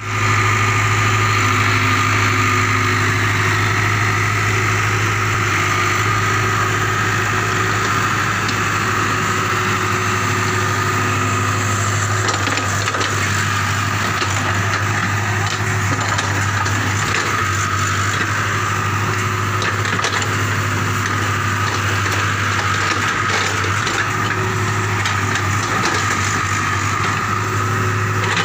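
JCB tracked excavator's diesel engine running at a steady pitch, a low steady hum with a higher whine above it, while the bucket digs out tree roots. From about halfway there are scattered cracks and knocks of roots and wood breaking and being dragged through the soil.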